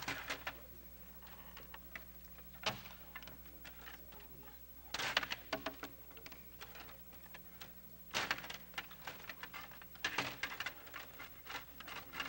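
Stiga rod table hockey game in play: metal control rods slide and twist, plastic players clack against the puck, and the puck knocks against the boards. It comes in several bursts of quick clicks and knocks.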